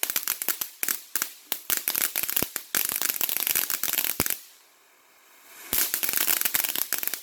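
Crackling consumer firework going off: a rapid, dense series of sharp pops and cracks. It stops for about a second a little past four seconds in, then crackles again near six seconds.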